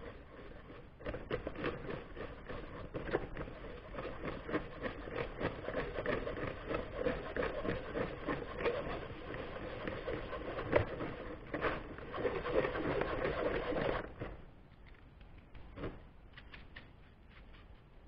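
Hands rubbing sodium-silicate core sand through a wire-mesh kitchen sieve into a plastic tub, breaking up unmixed lumps of silicate: a continuous gritty scratching and rasping. It goes much quieter about fourteen seconds in, leaving faint rustling and a few light ticks.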